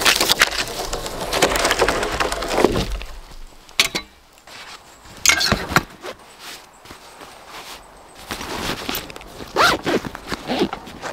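Peeled wooden poles knocking and clattering as a log is laid onto a stack of logs, for about three seconds. After that come a few short, separate rustles and clicks.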